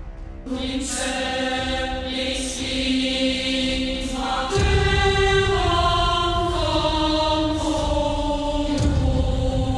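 Choir voices played on an electronic keyboard, holding slow sustained chords over a downward-stepping melody, entering about half a second in. A deep low rumble comes in about four and a half seconds in and again near nine seconds.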